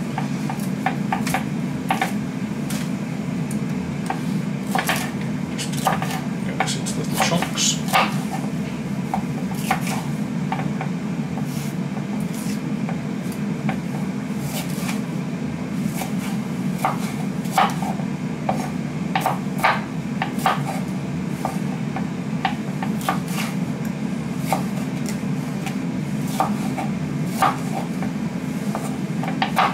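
Large kitchen knife chopping a green pepper on a wooden chopping board: irregular runs of sharp knocks as the blade hits the board, over a steady low hum.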